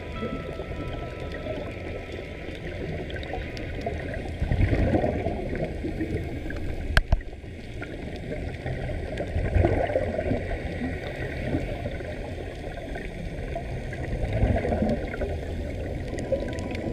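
Muffled underwater gurgling of air bubbles escaping from sea-walk diving helmets, swelling louder about every five seconds. A single sharp click sounds about halfway through.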